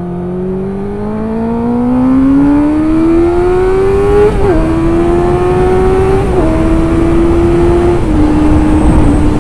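2005 Suzuki GSX-R600's inline-four engine under hard acceleration, its pitch climbing steadily and then dropping at an upshift about four seconds in. After that it climbs more slowly, with two smaller step-downs later on.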